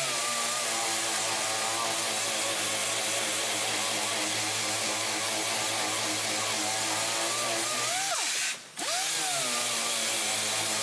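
Hand-held sander with on-tool vacuum dust extraction running against wood, its pitch wavering slightly as it is worked. About eight and a half seconds in, it briefly cuts out and starts again.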